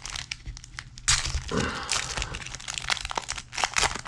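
Foil-lined trading-card pack crinkling in the hands and being torn open across the top, the sharpest tear about a second in.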